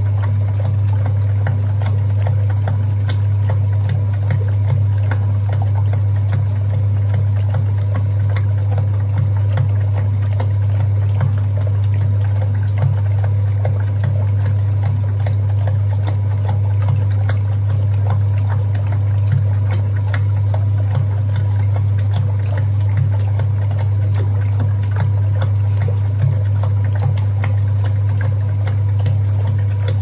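1961 Hoover Keymatic 3224 front-loading washing machine running a wash, with a steady low motor hum and water and laundry sloshing in the turning drum.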